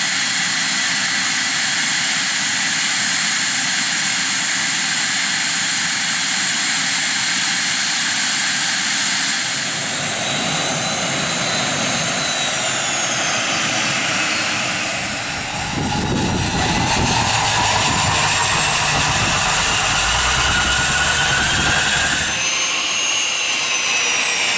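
Cessna Citation II's twin Pratt & Whitney Canada JT15D turbofan engines running with a steady high whine. About halfway through, the whine's tones slide downward. A deep rumble of jet exhaust then comes in, and near the end it drops away as the tones rise again.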